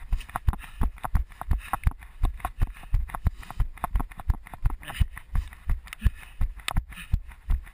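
A runner's footfalls on a dirt and grass track, a steady jogging rhythm of about three thudding steps a second, picked up by a camera mounted on the runner's head.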